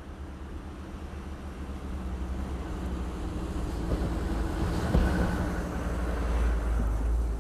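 Low, steady engine rumble of a vehicle, growing steadily louder.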